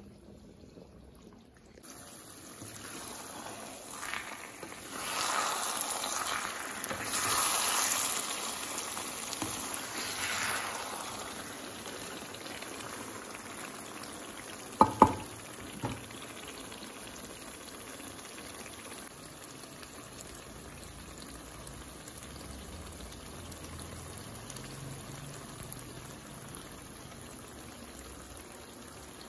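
Thick beef rendang in coconut-milk oil bubbling and sizzling in a wok over a very low gas flame as it is cooked down dry, louder for several seconds while a wooden spatula stirs it. Two sharp knocks about halfway through are the loudest sounds.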